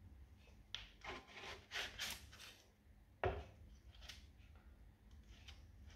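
Plastic spatula scraping and sliding under zucchini fritters on baking paper in an air fryer's cooking pan, in a series of short strokes as the fritters are separated and flipped, with a sharper knock about three seconds in.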